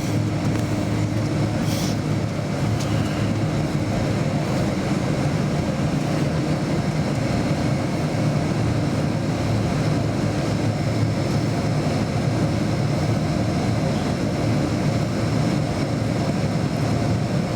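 Steady jet engine and airframe noise inside the cabin of a Boeing 757-200: a constant low rumble with a faint steady whine, holding level with no spool-up. A brief click about two seconds in.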